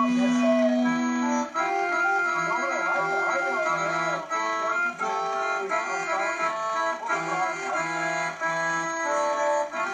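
Piano accordion playing a tune: a melody over held chords and changing bass notes.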